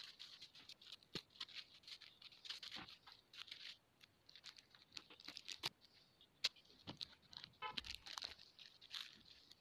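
Faint, irregular small clicks, taps and rustles of diamond painting: tiny resin drills picked from a plastic tray and pressed onto the sticky canvas. A short rattle of drills in the tray comes shortly before the end.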